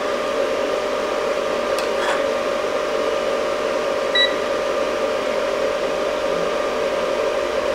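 Steady mechanical hum with a faint tone in it, like a cooling fan running, and a short electronic beep about four seconds in as a button on the digital multimeter is pressed. A faint click about two seconds in.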